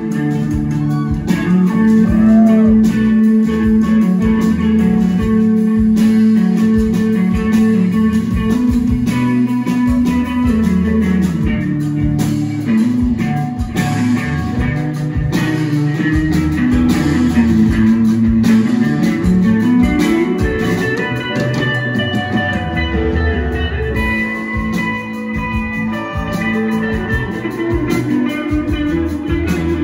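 Live rock band playing an instrumental passage: electric guitar over bass and drums.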